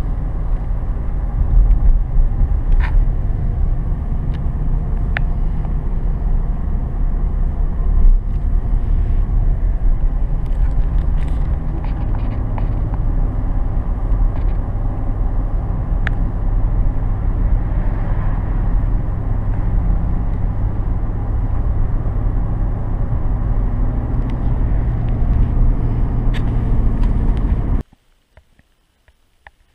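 Road and engine noise inside a moving Chevrolet's cab: a steady low rumble with a few faint clicks and rattles. It cuts off suddenly near the end.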